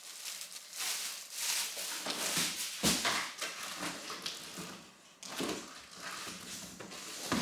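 Plastic packaging and vacuum cleaner parts being handled while unboxing: irregular rustling and crinkling, with a sharp knock about three seconds in.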